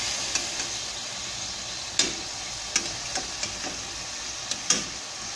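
Canned pineapple rings sizzling in hot oil in a stainless steel pan, with several sharp clicks of metal tongs against the pan as the slices are turned, the loudest about two seconds in and near the end.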